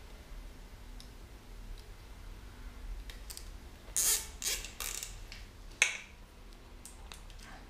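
Plastic cable ties being pulled tight, their teeth ratcheting through the locking heads in a few short zips around the middle, with a sharp click shortly after.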